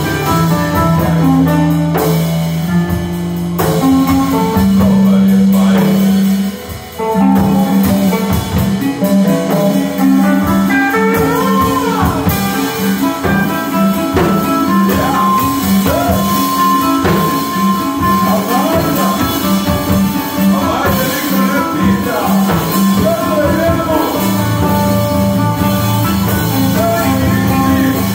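Live rock band jamming: electric guitar with wavering, bending lead notes over low sustained bass notes and a drum kit. The playing drops out briefly about seven seconds in, then carries on.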